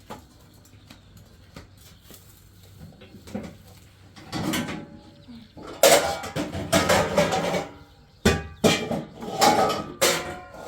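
Dishes and pots clattering and clinking: a few scattered knocks, then from about four seconds in a run of loud clatters with some ringing, each starting sharply.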